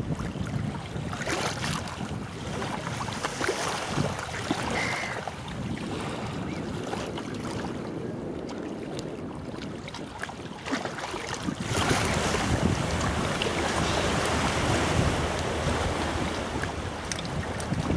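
Wind buffeting the microphone over choppy lake water lapping at the shore, growing louder about twelve seconds in.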